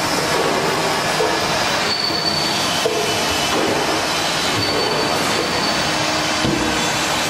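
Loud, steady machinery noise in a factory workshop: a continuous rushing drone with faint thin high squeals that come and go.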